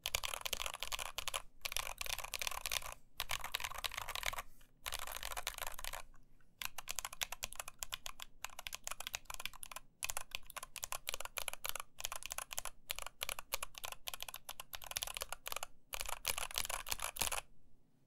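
Continuous fast typing on an NK65 mechanical keyboard fitted with 67g Zealios tactile switches, lubed and filmed, under INF BoW Katakana keycaps: a dense run of key clacks with a few brief pauses. The typing stops shortly before the end.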